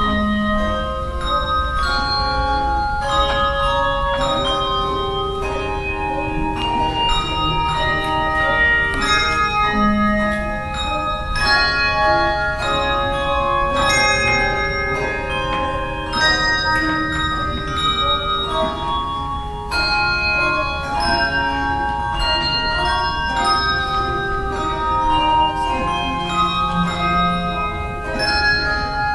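A handbell choir playing a piece: many tuned bells struck in melody and chords, each note ringing on, with a few deep bass bells sounding under the tune.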